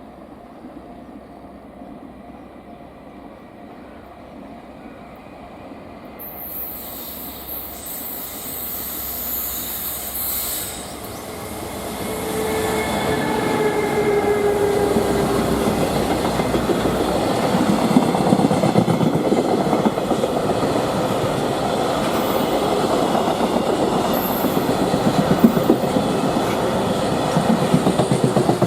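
Freight train approaching and passing: an electric locomotive goes by with a brief falling whine, then a long line of container wagons rolls past with steady wheel noise and rhythmic clatter over the rail joints. The sound grows from about a quarter of the way in and stays loud to the end.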